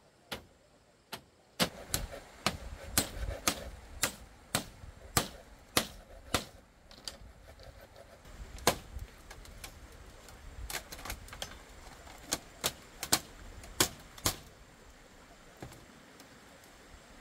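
A run of sharp knocks, about two a second, then more scattered and uneven: a hand tool striking wood or bamboo.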